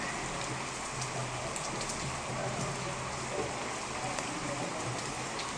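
Heavy rain falling: a steady hiss of rain with scattered drop ticks.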